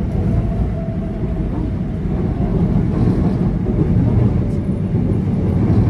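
Subway train running: a steady low rumble heard from inside the carriage.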